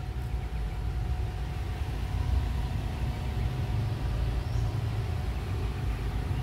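Steady low outdoor background rumble with a faint, thin steady hum, and a faint short chirp about four and a half seconds in.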